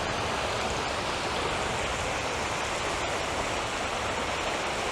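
Steady rush of sea surf washing onto the beach.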